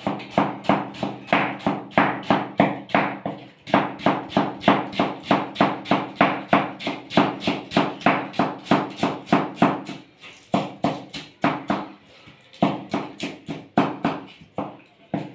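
Kitchen knife chopping cabbage on a plastic cutting board: quick, even strikes of the blade, about three to four a second, pausing briefly about four seconds in and slowing to a few scattered strikes around ten to twelve seconds in.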